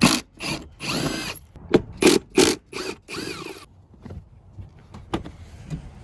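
A tool working the 12 mm rear-seat bolts loose in a series of short rasping bursts over the first few seconds. A few light clicks follow.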